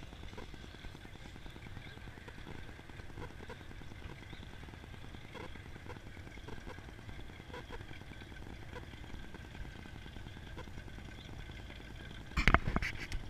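Open-air car-meet ambience: a steady low rumble of engines and traffic with faint scattered ticks, then a short burst of loud knocks near the end.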